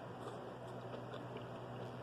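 Quiet room tone: a low steady hum with a few faint soft clicks.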